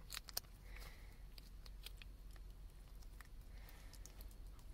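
A cat licking a paste treat from a squeeze tube: faint, scattered wet clicks and smacks, a few stronger ones in the first half-second.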